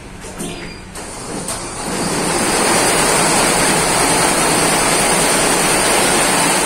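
A D&N multi-head embroidery machine starting up: a few clicks, then its running noise builds over about a second into a loud, steady, dense mechanical noise as all the heads stitch at speed.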